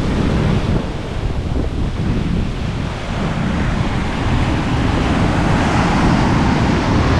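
Ocean surf washing onto the beach, with heavy wind buffeting the microphone.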